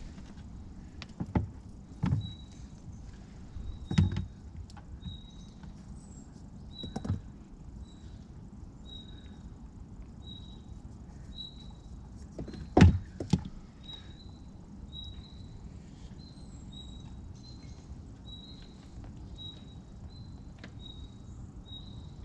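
Knocks and thumps of tackle being handled on the floor of an inflatable boat, about six of them, the loudest about two-thirds of the way in. A short high chirp repeats about once a second behind them.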